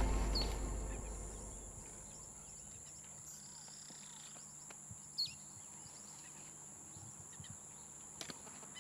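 The low tail of a boom fades out over the first two seconds, leaving quiet outdoor ambience: faint bird chirps over a steady high insect drone. A single soft knock sounds about five seconds in.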